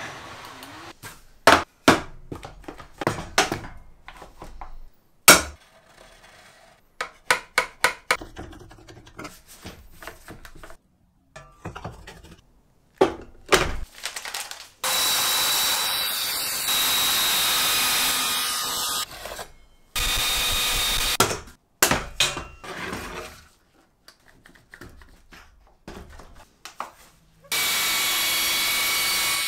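Knocks and clatters of a board, straightedge and clamps being handled, then a compact electric circular saw started in short runs, the longest about four seconds, and cutting through a board along a straightedge near the end.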